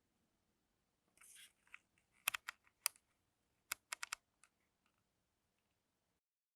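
Faint, sharp clicks and taps: a brief soft rustle about a second in, then two small clusters of clicks, the second about a second and a half after the first.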